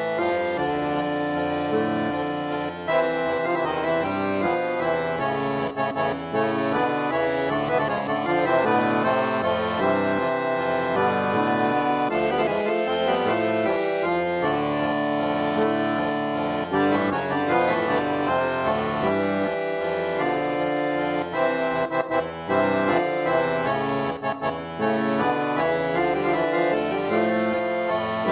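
Background music with held, reedy instrument notes and a melody that continues without pause.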